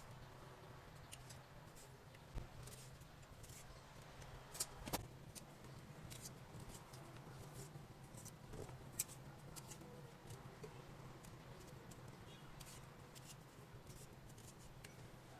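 Quiet room with a steady low hum and scattered light clicks and taps, a few sharper ones about five and nine seconds in, typical of small kitchen items being handled.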